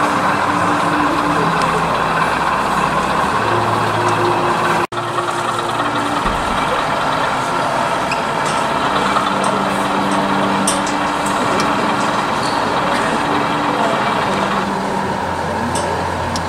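Crowd murmur in a busy exhibition hall, mixed with the running sound of a model diesel locomotive: a low hum whose note steps up and down. The sound cuts out briefly about five seconds in.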